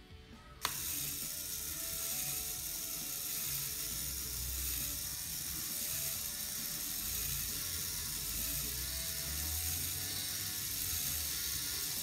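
A click about a second in as the battery box is switched on, then the small electric motor of a LEGO 9686 robot dog running steadily, driving its plastic gear train that lifts the eyes up and down.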